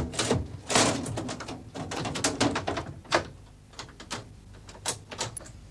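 A wooden shop door being shut and locked: clicks and rattles of its bolts and lock, busiest in about the first second, then scattered single clicks.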